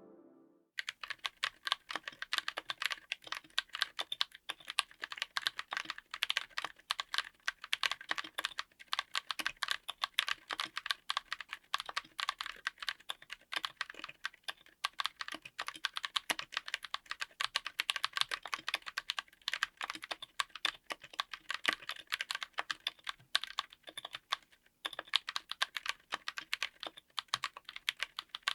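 Fast, continuous typing on a mechanical keyboard fitted with Gazzew U4Tx 65g tactile switches: a dense run of key strokes, each a short click as the key bottoms out. It starts about a second in and has one brief pause near the end.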